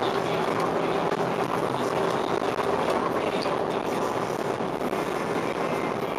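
Steady engine and road noise heard from inside a semi truck's cab.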